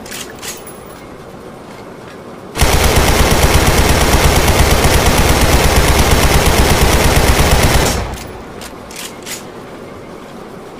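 AK-74U assault rifle firing on full auto: one long continuous burst of about five seconds, starting about two and a half seconds in. Each burst fades out afterwards, with a few light clicks in the lull.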